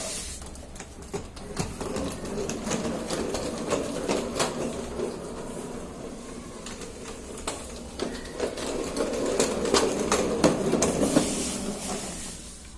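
Hard plastic wheels of a child's ride-on toy car rolling across a stone floor: a continuous rolling rumble with scattered clicks and knocks, easing off briefly around the middle before picking up again.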